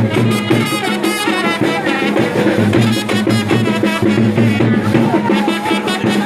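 Music with a steady, quick drum beat under a wavering melody line.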